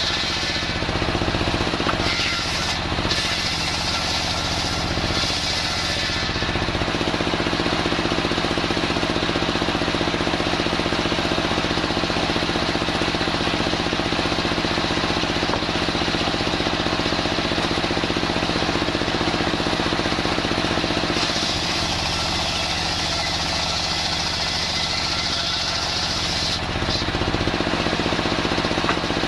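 Homemade engine-driven circular sawmill running steadily, its engine beat constant throughout. From about six seconds in to about twenty-one seconds in, a deeper hum takes over and the high hiss drops.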